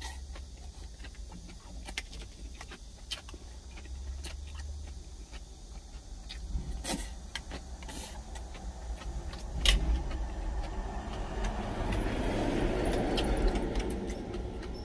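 Eating sounds: chopsticks and a spoon clicking against a stainless steel bowl, with chewing, over a low steady rumble. A louder rustling scrape near the end as a plastic container is handled.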